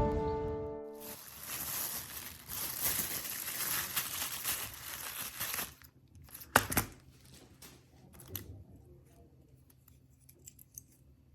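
Background music fades out about a second in. About five seconds of crackly tearing or peeling of a thin material follow, then two sharp clicks and a few faint small clicks.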